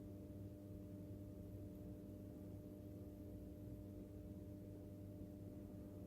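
Faint steady low hum of room tone, with no handling sounds.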